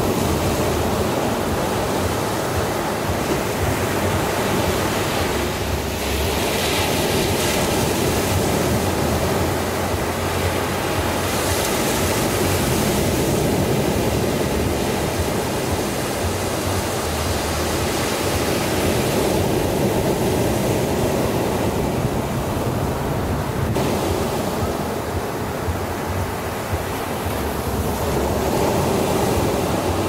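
Ocean surf breaking and washing up a sandy beach: a continuous rush of water that swells and eases every several seconds as each wave comes in.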